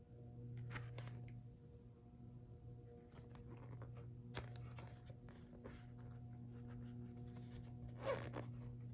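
Faint handling of paper and plastic merchandise: light rustles and scrapes, with a louder scrape about 8 seconds in, over a steady low electrical hum.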